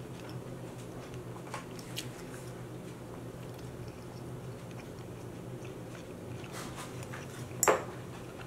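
Close-miked chewing of food with the mouth closed, with a few faint mouth clicks and one sharper, louder click near the end, over a steady low hum.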